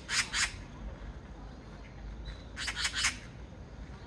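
Oriental magpie chattering: a quick run of harsh, rasping notes at the start, then a second run of about four notes around three seconds in.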